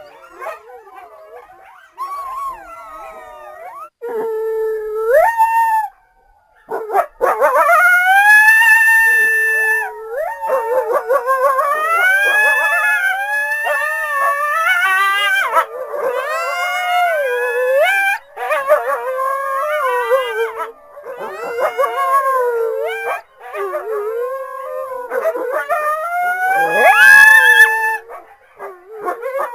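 A group of coyotes howling and yipping together, many high wavering calls overlapping and sliding up and down in pitch. The calls are thin and scattered at first, then become a loud, dense chorus about seven seconds in.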